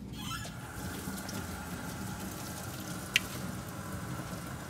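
Steady whir and hiss of workshop background noise with a faint steady whine, and one sharp click about three seconds in from hand work on a disassembled automatic transmission.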